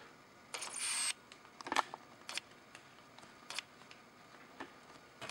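Quiet handling noises around the tubular RC trike model and camera: a short rustle about half a second in, then a few scattered light clicks and taps.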